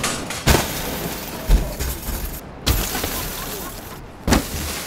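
A small Ford hatchback's bodywork struck by a swung metal café table and by kicks: four sharp crashes, roughly a second apart.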